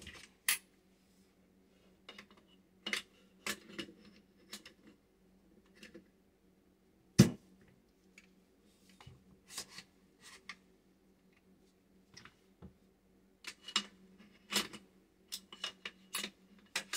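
Metal and polymer clicks and knocks of a Smith & Wesson AR-15's upper and lower receivers being handled and fitted back together, with one loud clack about seven seconds in and a quick run of clicks near the end.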